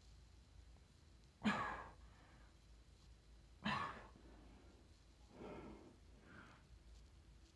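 A man breathing out hard in loud sighing exhales from exertion during Superman back-extension holds on the floor: two strong ones about two seconds apart, then two softer ones near the end.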